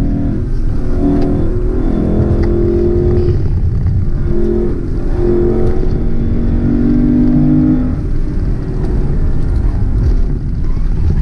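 Lexus LC500's naturally aspirated 5.0-litre V8 driven hard, heard from inside the cabin: the engine note climbs and drops back several times as it pulls through the gears, then falls away about eight seconds in as the throttle comes off.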